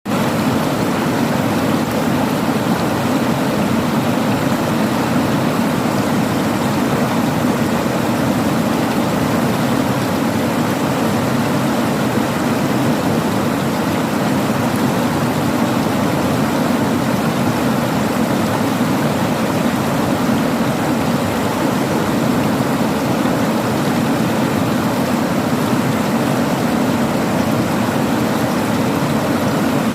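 A river rushing among rocks: a steady, loud flow of water with no breaks.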